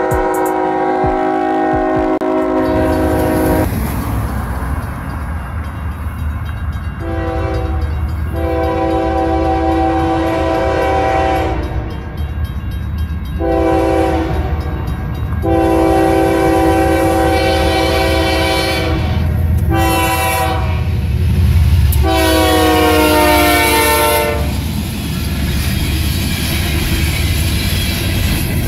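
A CSX freight locomotive's multi-chime air horn sounds a series of long and short blasts, the usual grade-crossing signal, over the low rumble of the train. The pitch drops slightly in the last long blast as the locomotive passes, and then only the rumble of the refrigerated boxcars rolling by remains.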